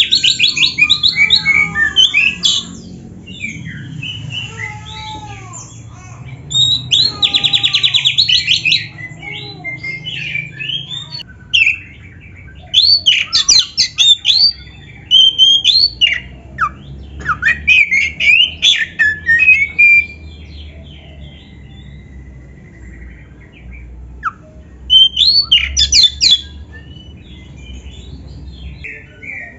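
Oriental magpie-robin singing loud, varied bursts of song: fast rattling trills, sweeping whistles and harsh squawky notes, with short pauses between phrases.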